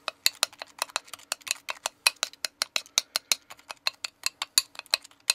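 Metal spoon stirring thick cake batter in a glass mixing bowl, clinking against the glass in a quick, even rhythm of about six or seven clicks a second.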